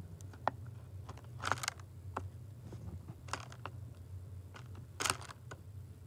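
Small bird feeding at a window feeder: an irregular scatter of sharp clicks and taps as it picks at seeds on the feeder, with two louder rustling bursts about a second and a half in and about five seconds in. A low steady hum runs underneath.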